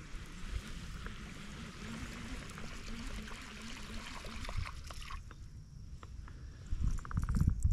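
Water trickling and splashing close to a kayak, with small drips and ticks, stopping suddenly about five seconds in; near the end, low rumbling knocks of handling against the boat.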